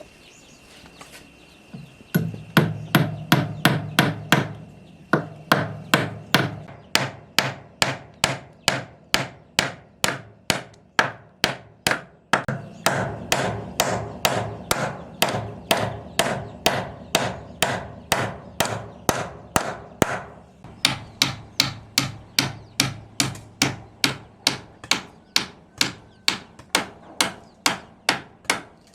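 Steady hand hammering, about two to three blows a second, starting about two seconds in.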